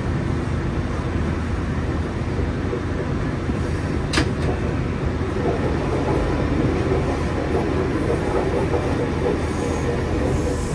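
Track inspection vehicle rolling along the rails, heard from inside its driver's cab: a steady running rumble of wheels on track, with one sharp click about four seconds in.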